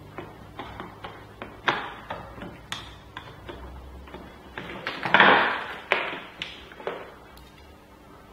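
Light taps and clicks of a small screwdriver and cable parts being handled on a wooden workbench, with a louder rustling scrape about five seconds in.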